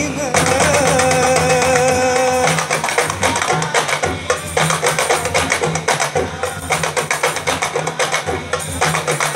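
Rebana frame-drum ensemble playing a fast, dense rhythm of interlocking hand strokes. A held melodic note over the drums cuts off about two and a half seconds in, leaving the drums alone.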